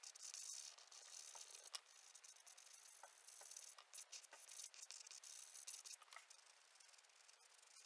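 Faint, uneven scratching of a pastel on pastel paper, with scattered small clicks and ticks.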